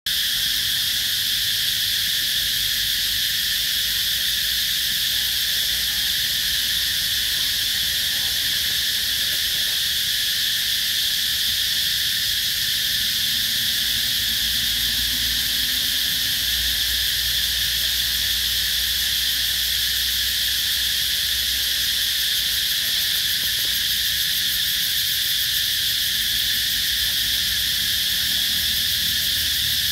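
Steady, unbroken chorus of insects in the forest trees: a high shrill drone that holds at the same level throughout.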